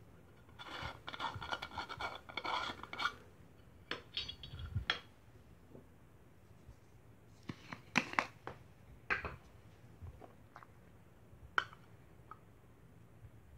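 A small screw-on cap being twisted off a container, a scraping, rattling run of about two seconds, followed by a scatter of sharp clicks and clinks as small metal lids are handled and set down on a wooden floor.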